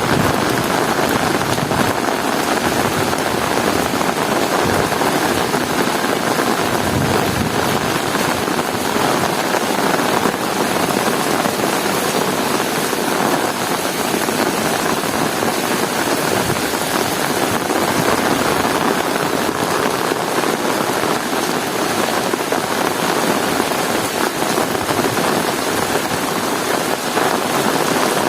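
Heavy rain falling steadily, a dense even hiss with no thunder claps.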